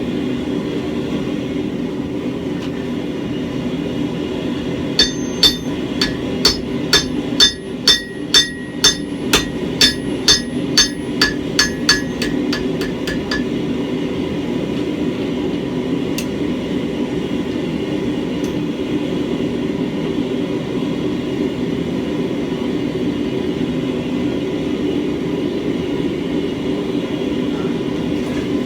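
A hammer strikes steel on an anvil about eighteen times, roughly two blows a second, each with a bright metallic ring. Under it runs a steady low roar from the running forge.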